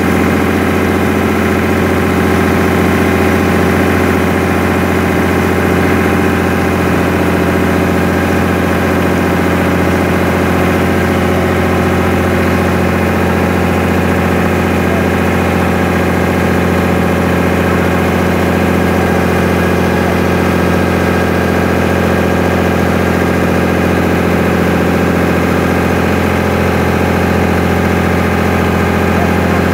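Popopô riverboat's diesel engine running at a steady speed, over the rush of water churned up by the boat.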